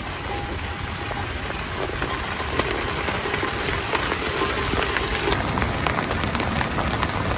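Heavy rain falling steadily, with many separate drops heard as sharp taps on a surface. It grows a little heavier about two seconds in.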